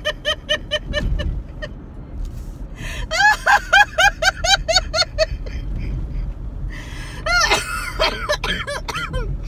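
A woman laughing hard during a laughter-yoga session, in three bouts of rapid, high-pitched 'ha-ha' pulses with short pauses between. Under it runs the low hum of a car's cabin.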